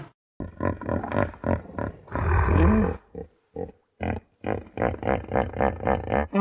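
Hippopotamus calling: a series of short, deep pulses, with a longer one about two seconds in, then a fast run of about five a second near the end.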